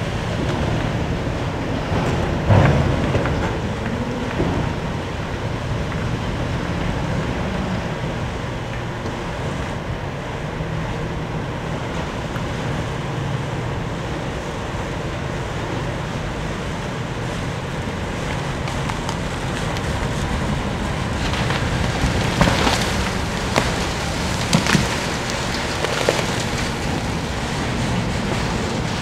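Giant stripping shovel working: a steady machinery rumble mixed with wind on the microphone, with a knock early on and a few more knocks near the end.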